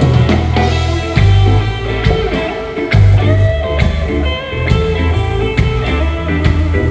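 Rock band playing at a soundcheck: electric guitar over a heavy bass line, with drum hits keeping a steady beat.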